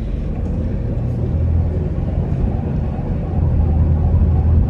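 Car engine running with a steady low rumble that grows a little louder about three seconds in. The car has sat unused for months on an overnight-charged battery, and its owner takes the bit of noise as expected.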